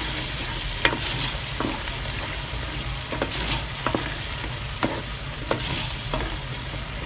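Chili spice paste with dried prawns sizzling in oil in a metal pot, stirred with a wooden spoon that knocks against the pot about seven times over a steady frying hiss. The paste is being fried until fragrant.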